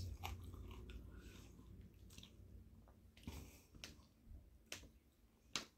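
A person chewing potato chips with the mouth closed: faint, irregular crunches and clicks spaced about a second apart.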